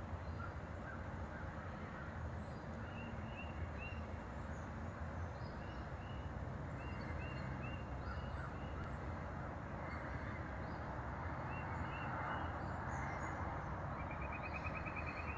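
Birds chirping over a steady background hiss: short chirps in runs of three or four notes, and a fast trill near the end.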